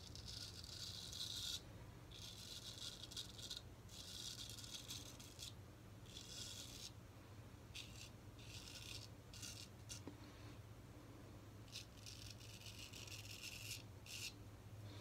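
Straight razor blade scraping through lathered beard stubble on an across-the-grain pass. It comes as a run of short rasping strokes, each about a second long, with brief pauses between them.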